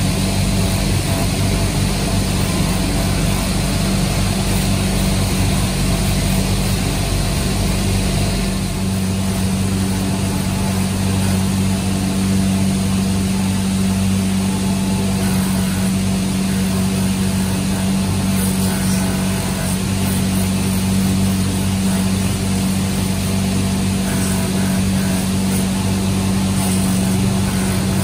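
Electric bench buffing machine running with a steady motor hum while a truck inner tube is pressed against its spinning wheel, rasping the rubber around the burst to rough it for a patch. Faint scratchy scraping comes and goes over the hum in the second half.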